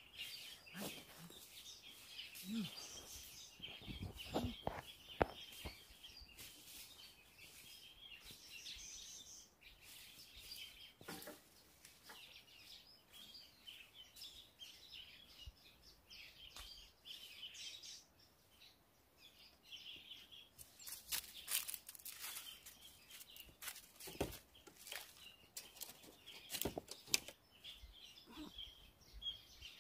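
Small birds chirping steadily in the forest, with a few scattered knocks and clicks, the loudest a little over two-thirds of the way through.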